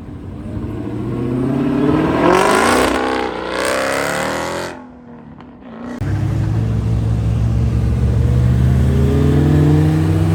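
A car engine revving hard as the car accelerates, its pitch climbing and then falling away. After a sudden break, another engine comes in and climbs steadily in pitch toward the end.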